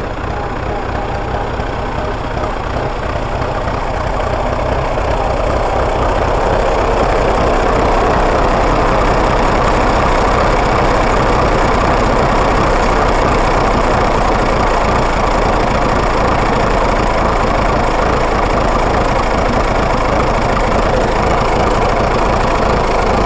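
1950 Fordson E27N tractor's engine running, growing louder over the first several seconds as the tractor draws near, then idling steadily once stopped close by.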